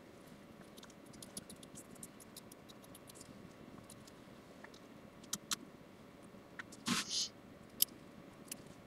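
Small scissors trimming away excess fabric after a tack-down stitch: scattered faint clicks and snips, with a louder snip and fabric rustle about seven seconds in.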